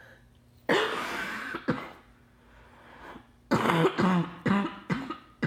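A woman coughing while sick. One long cough comes about a second in with a short one right after it, then a fit of several coughs in quick succession in the second half.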